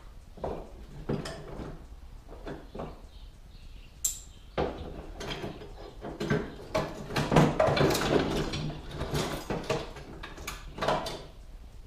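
Small metal parts clattering and clicking as they are rummaged through and handled. The clatter is sparse at first and becomes busy and continuous around the middle.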